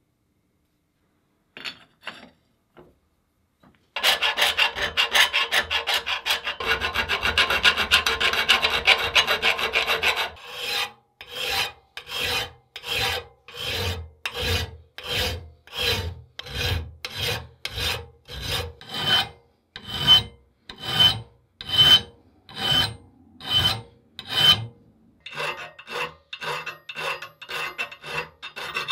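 Hand file rasping on the cast metal body of an old hand drill. It starts about four seconds in with rapid short strokes, then settles into slower, even strokes a little under two a second, and turns quicker again near the end.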